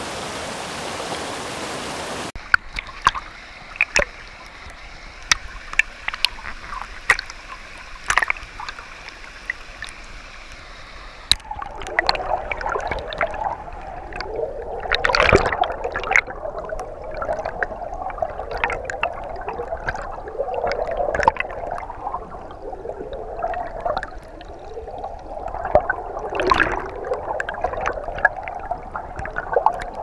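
Mountain stream rushing over boulders as a steady hiss for the first couple of seconds, then cut to water heard underwater: scattered sharp clicks and pops, turning about a third of the way in into a busy, churning gurgle of bubbles with frequent pops.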